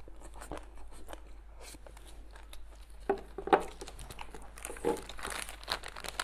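Close-up eating sounds of someone chewing chicken giblets and rice: many small mouth clicks and smacks. Near the end, plastic food packets crinkle as they are handled.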